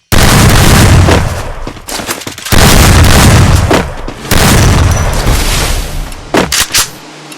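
Close thunder: a sudden loud clap, then rolling rumble that swells again twice, with a few sharp cracks near the end, at close to full recording level.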